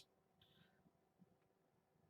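Near silence: room tone, with a faint brief sound about half a second in and a soft tick a little after a second.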